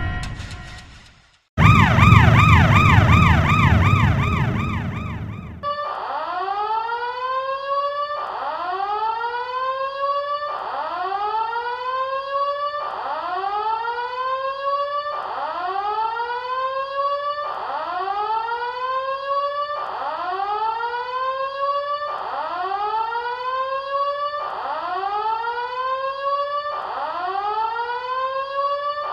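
Siren-like alarm sound effect. It starts with a fast warbling wail for about four seconds, then changes to a rising whoop repeated about every second and a half.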